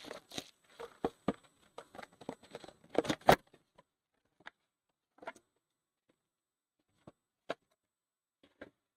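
Foil trading-card packs and cards being handled: a quick run of crinkling rustles and small taps for about three seconds, then a few isolated soft taps.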